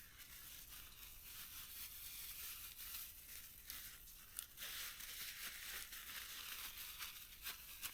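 Plastic bag crinkling and rustling as it is shaken and squeezed to mix a potato batter inside it. The rustle is faint and continuous, with a few sharper crackles.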